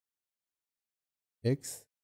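Dead silence, then one short spoken word, "X", about one and a half seconds in.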